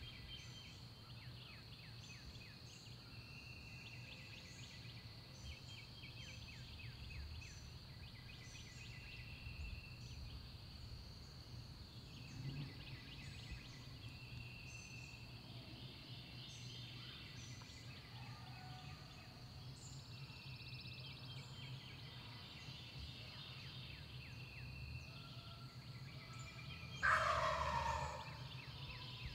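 An eastern wild turkey gobbler gobbles once, loud, near the end. Through the rest, songbirds call over a steady high drone.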